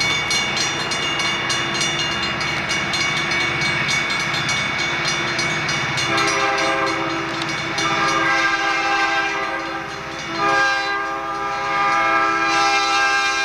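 Southern Pacific diesel freight train rolling slowly as it comes to a stop. About six seconds in, the lead locomotive's air horn sounds a long chord blast, then after a short break a second long blast.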